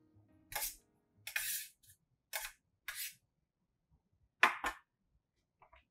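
Metal spoon scraping diced onion and parsley off a stainless steel tray into a ceramic bowl: a run of short scrapes, then two sharp taps about four and a half seconds in, the loudest sounds here.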